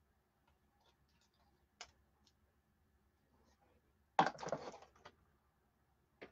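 A few light clicks, then about four seconds in a brief jangling clatter of a set of metal bangle bracelets being handled and knocking together.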